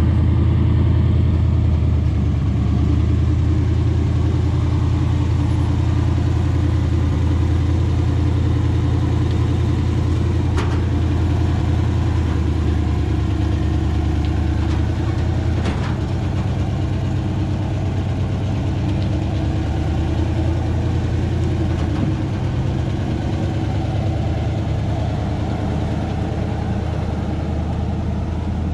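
A vehicle engine running steadily, a loud, even low drone with no revving, and two faint clicks in the middle.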